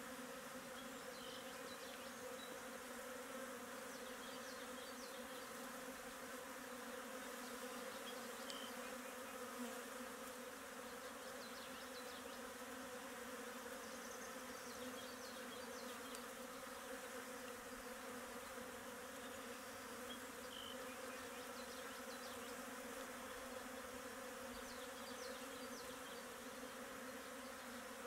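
A faint, steady buzzing hum that does not change, with a few faint high ticks here and there.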